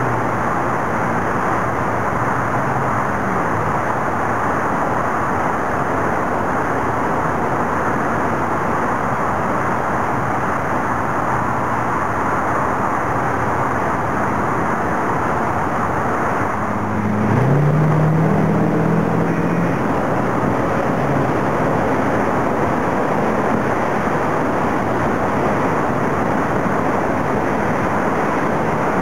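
Steady roar of road traffic, with one engine rising in pitch and getting louder a little past halfway.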